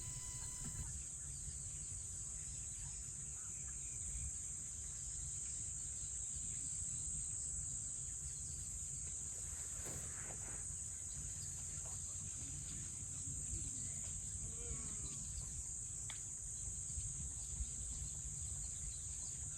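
African bush nature ambience: a steady high-pitched chorus of crickets and other insects over a low rumble, with a few faint bird calls in the second half.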